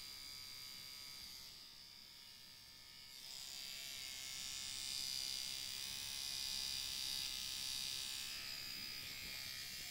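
Finishing Touch Flawless battery-powered facial hair trimmer running with a steady high-pitched whine and buzz as its head is moved over fine hair on a finger. The sound grows louder about three seconds in.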